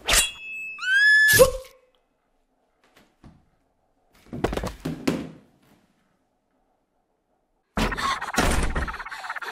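A thud, then a short high scream rising in pitch about a second in. After a pause come choking gasps, and near the end a loud harsh rasping noise starts and keeps going.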